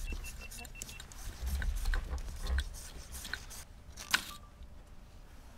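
Scattered clicks and handling noise, with a quick run of short high electronic beeps in the first second and a single sharp click about four seconds in.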